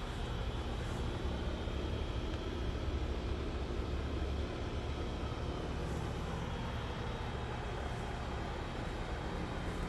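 Steady low rumble of outdoor background noise with a faint hum, swelling slightly a couple of seconds in.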